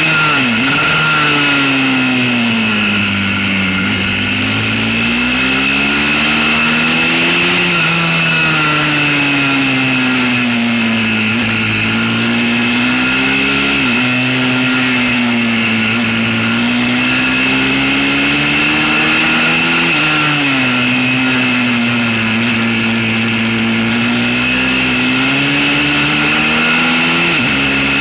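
Pit bike's single-cylinder engine running hard on track, its pitch rising and falling in long sweeps as the throttle opens and closes through the corners, with a few sudden jumps in pitch. A steady high whine and wind rush run under it.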